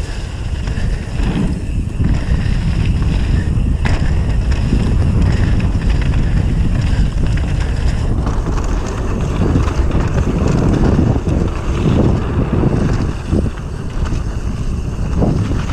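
Wind buffeting the microphone of a bike-mounted or rider-worn action camera during a fast mountain-bike descent on a dirt trail, with the tyres rumbling and the bike rattling irregularly over the bumps. The noise eases for a moment shortly before the end.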